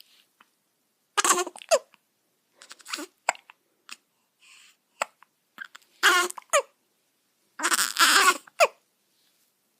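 Newborn baby hiccupping: several short, sharp hics a few seconds apart, some ending in a brief falling squeak, with faint little clicks between them.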